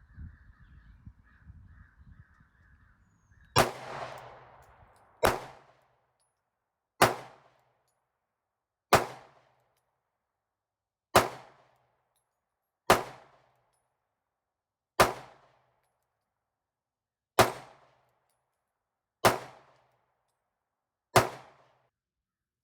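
Ten single shots from a small 9mm handgun, fired slowly about two seconds apart, each with a short echoing tail. The last shot empties the gun of the shooter's remaining ammunition.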